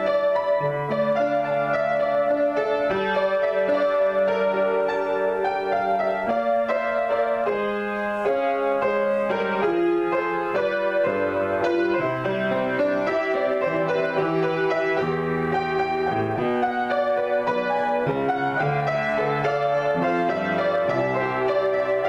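Solo piano improvisation: a continuous flow of chords and melody notes over a shifting bass line.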